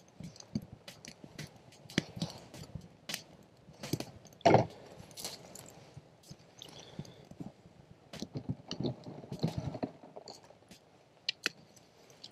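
A small kindling fire of pine needles, sticks and dry moss crackling while the tinder is handled and pushed onto it, giving irregular sharp snaps and rustling, with one louder knock about four and a half seconds in.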